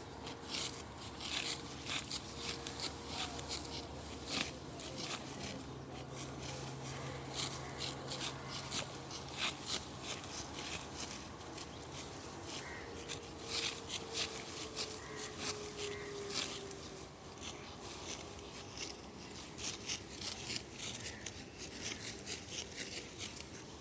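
Rice stalks being cut and handled by hand in a paddy: a steady run of crisp, dry rustling snips and swishes, a few a second and uneven.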